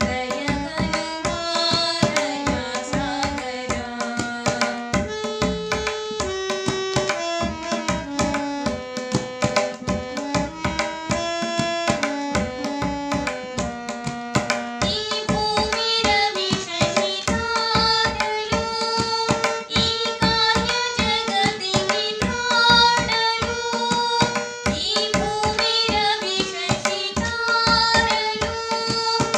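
Tabla playing a steady rhythm under a harmonium melody of held, stepped notes. About halfway through, a woman's singing voice joins in with a Telugu devotional song.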